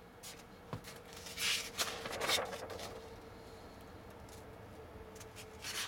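Paper rustling and scuffing as a paperback repair manual is handled, with a few short scrapes and a small click in the first half and another near the end, over a faint steady hum.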